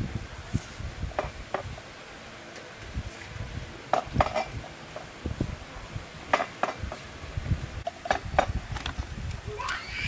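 Scattered clicks and light knocks of hard plastic and metal being handled as a Ryobi string trimmer's small engine is worked loose from its plastic housing.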